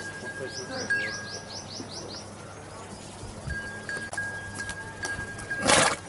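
A small bird calling a quick run of about eight falling chirps in the first two seconds, over a thin steady high tone. Near the end comes a short, loud, breathy burst of noise, the loudest sound here.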